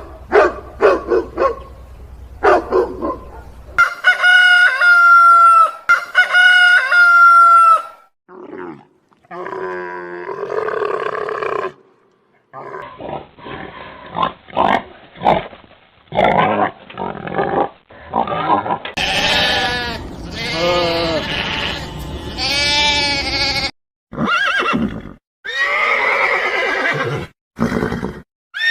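A run of different animal calls one after another, mostly farm and domestic animals: short sharp calls at first, two long drawn-out calls, then groups of shorter repeated calls.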